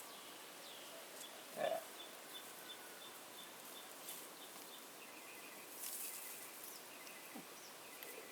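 Faint outdoor quiet with a bird calling in a rapid run of short, high, evenly spaced chirps. About five seconds in, the chirps carry on at a lower pitch.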